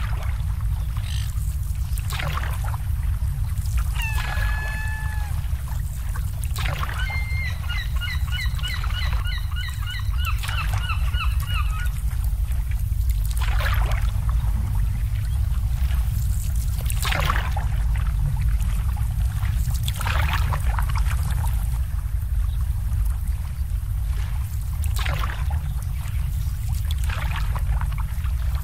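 Harbour water lapping and splashing against moored boats over a steady low rumble. A bird calls once about four seconds in, then gives a run of rapid repeated calls, about three a second, from about seven to twelve seconds.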